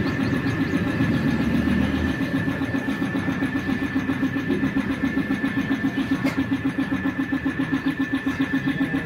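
A small engine running steadily with a fast, even throb and a thin steady high tone over it. A heavier low rumble drops away about two seconds in, and there is a single light click about six seconds in.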